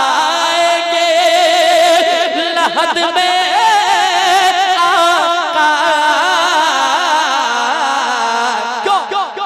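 A man singing a naat into a microphone: one long, drawn-out melismatic line whose pitch quivers and curls in ornaments and slowly sinks lower, breaking up near the end.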